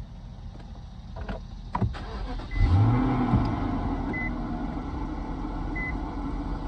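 Infiniti M45's 4.5-litre VK45DE V8 being started: a couple of clicks, then the engine catches about two and a half seconds in, flares up in revs and settles into a steady idle. The owner calls the idle rough and scratchy, with a noise he can't identify, which a friend suspects is a timing chain with worn guides. A short car chime beeps about every second and a half once the engine is running.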